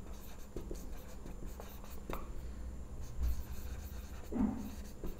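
Faint scratching of handwriting strokes, in short separate strokes, over a steady low hum.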